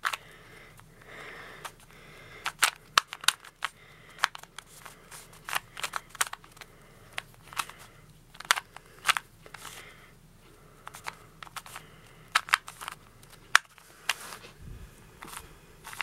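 A 2x2 Rubik's cube being scrambled by hand: its plastic layers turning with quick, irregular clicks and clacks, and a soft sliding rasp between some turns.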